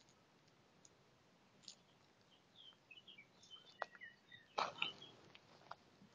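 Faint short bird chirps, with a few sharp crackles of footsteps on dry leaf litter and twigs about two-thirds of the way in.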